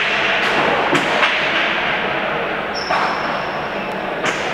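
Hard pelota ball being struck in a remonte rally: a series of sharp knocks, about six, as the ball hits the frontón wall and floor and is caught and flung from the players' wicker remonte baskets, echoing in the hall. A thin high steady tone sounds for over a second about three seconds in.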